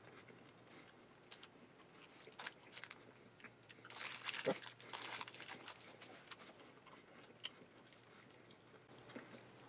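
Faint chewing of a bite of Quest protein bar, small clicks of the mouth and jaw, with a busier stretch of chewing about four to six seconds in.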